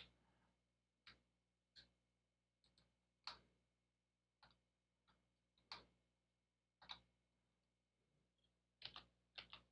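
Faint, irregular clicking, about ten separate clicks, from a computer keyboard and mouse in use.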